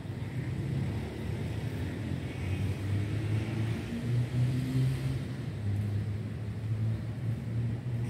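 Low, steady rumble of road traffic, with a motor vehicle passing that swells and fades around the middle.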